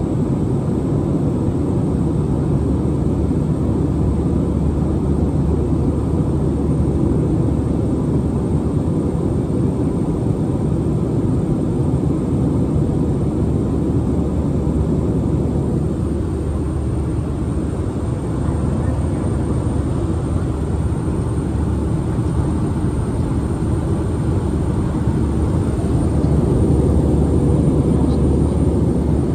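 Steady low drone of cabin noise inside an Airbus A319, its engines running without a break, a little louder near the end.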